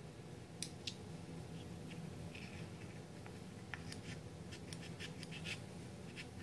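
Small scissors snipping into a ball python's leathery eggshell, cutting the egg open near hatching. Light snips and scratches, two early and a close run through the second half, over a faint steady hum.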